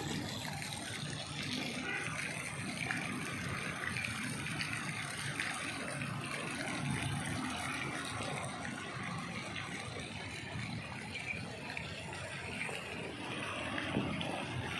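Steady outdoor background noise: an even, low rush of distant road traffic, with no single sound standing out.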